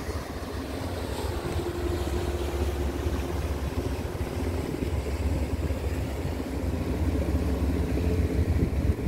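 Engines of a 198-ton passenger ferry running as a steady low rumble, with a steady hum tone over it for a few seconds in the first half.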